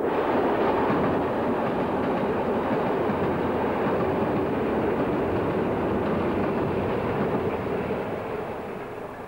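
A steady, dense rumbling noise with a mid-range hum, fading out near the end.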